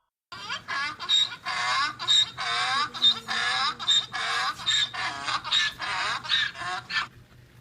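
Giraffe calls: a rapid run of about twenty short calls, roughly three a second, each sliding down in pitch, stopping suddenly about seven seconds in.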